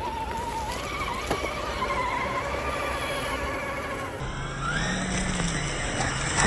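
Electric motor and gear whine of a radio-controlled scale crawler truck, its pitch wavering with the throttle. About four seconds in, the sound cuts to a lower drone that rises and falls.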